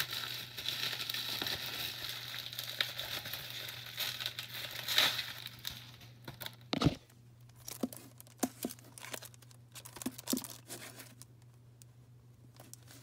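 Packaging crinkling and rustling as it is handled for about six seconds. Then comes a single knock, followed by scattered light clicks and taps.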